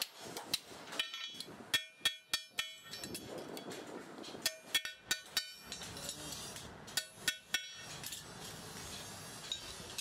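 Metal struck against metal: sharp, ringing clinks that come in three quick runs of several strikes each.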